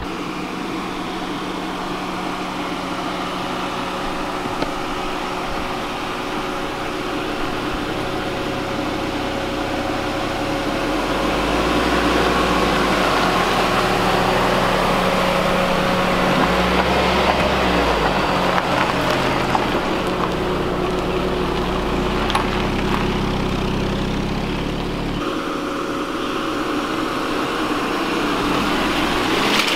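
Jeep Cherokee Trailhawk's engine running at low speed as the SUV crawls along a dirt trail, a steady engine hum under the noise of tyres on dirt. It gets louder from about a third of the way in as the vehicle comes closer, and eases again near the end.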